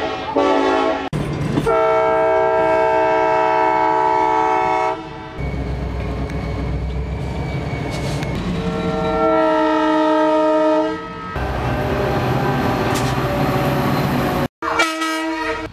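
Locomotive air horns sounding long steady chords, two blasts of about three seconds each and a brief one near the end, with the low rumble of passing locomotives in between. The sound changes abruptly several times, with a momentary dropout shortly before the last horn.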